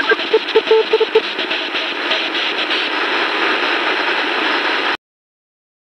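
Sony ICF-SW11 shortwave receiver tuned near 10.1 MHz, giving a quick run of short, even beeps over static hiss; the beeps sound like Morse code. The beeps stop about a second in and the hiss carries on alone until the sound cuts off suddenly near the end.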